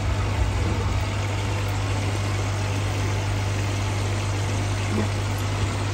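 Aquarium pump humming steadily under a continuous hiss of bubbling water.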